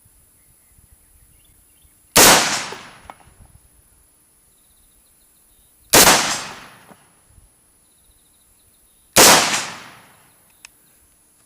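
Three shots from a 5.56 AR-15 rifle fitted with a custom muzzle brake, spaced about four and then three seconds apart, each followed by a fading echo.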